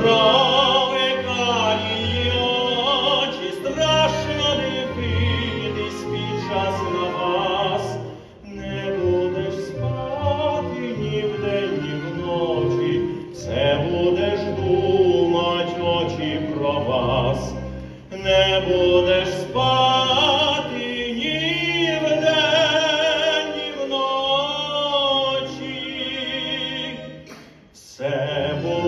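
Male voice singing an operatic stage song with strong vibrato, over steady instrumental accompaniment, in phrases with short breaks between them.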